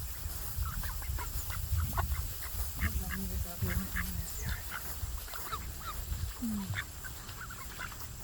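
A flock of ducks calling, with many short, scattered quacks and calls over a steady low rumble.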